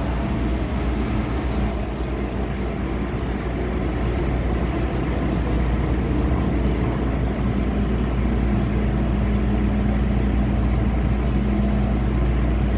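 Interior running noise of an MTR M-Train electric multiple unit pulling into a station: a steady low rumble with a hum that grows stronger in the last few seconds.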